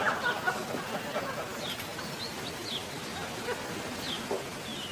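Small birds chirping: scattered short, high chirps over a faint, steady outdoor background.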